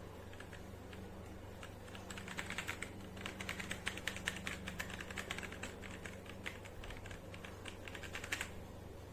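Typing on a mechanical keyboard fitted with DANGKEY switches: a few scattered key presses, then about six seconds of fast, continuous keystrokes that stop shortly before the end, over a faint steady hum.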